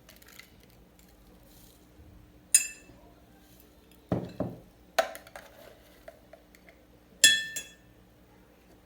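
Teapot and its lid being handled: two sharp, ringing clinks, about two and a half and seven seconds in, with a few duller knocks between.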